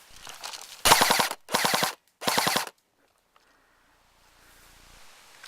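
Airsoft gun firing three short full-auto bursts in quick succession, each a rapid rattle of shots lasting about half a second.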